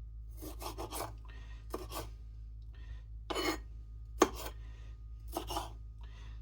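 Kitchen knife cutting peppers on a cutting board: short rasping slices in small groups of strokes, with one sharp knock of the blade on the board a little after four seconds in.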